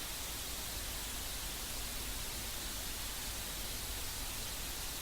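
Steady, even hiss with no distinct events: background noise between narrated lines.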